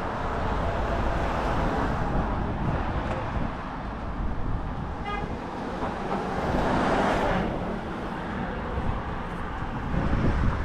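Road traffic on a residential street, with one car swelling past about six to seven seconds in. A short pitched beep sounds about five seconds in.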